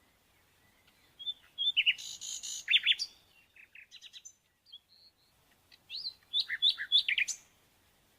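Small birds chirping in two bursts of quick, high chirps, the first starting about a second in and the second around six seconds in.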